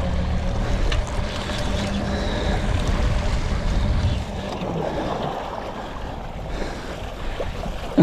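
Small boat's motor running low over the wash of water and wind. Its steady low hum drops away about halfway through, leaving the water and wind noise.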